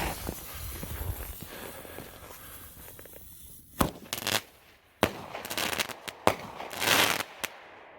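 Two single-shot floral bomb firework shells bursting: a sharp bang about four seconds in and another a second later, followed by a spell of crackling from the crackling peony bursts.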